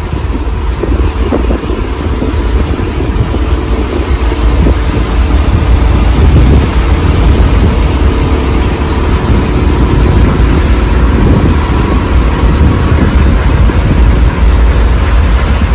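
Steady low rumble of a boat's engine, with wind buffeting the microphone.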